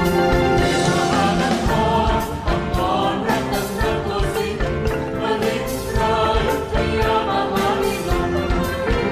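Thai dance music for a khon performance: sung vocals over pitched instruments and a regular percussion beat.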